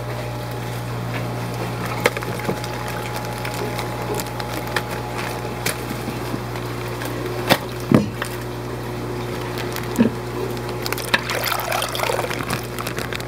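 Water pouring and trickling while shipped emerald crabs are unbagged, with scattered knocks and clicks over a steady low hum.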